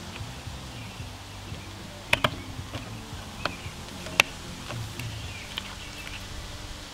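Plastic clicks and taps as vinyl window trim pieces are pressed and snapped into place on the window frame: a few sharp clicks, two close together about two seconds in and the loudest about four seconds in.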